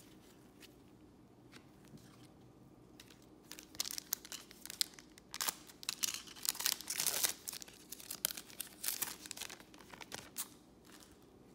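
A foil Panini Select baseball card pack being torn open by hand, the wrapper crackling and crinkling. The tearing starts about three and a half seconds in, runs for about seven seconds and is loudest near the middle.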